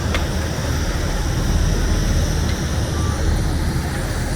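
Airliner noise: a steady low rumble with a broad hiss, and one short click near the start.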